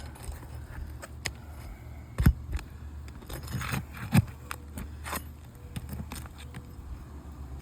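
A metal snake tool scraping and clicking against asphalt roof shingles as it is worked under them, with two sharper knocks about two and four seconds in.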